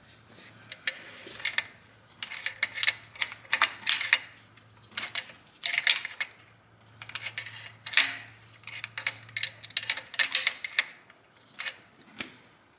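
Ratchet wrench clicking in quick runs of strokes with short pauses between them, as a bolt is tightened down.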